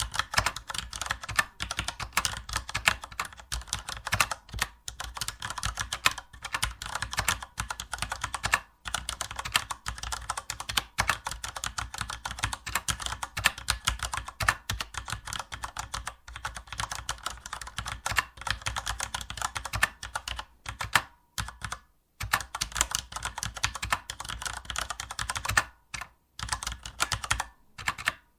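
Continuous fast typing on a computer keyboard: rapid key clicks with brief pauses of under a second now and then.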